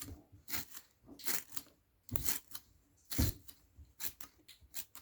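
Short rustles and light clicks of small objects being handled, about ten separate brief sounds at uneven intervals.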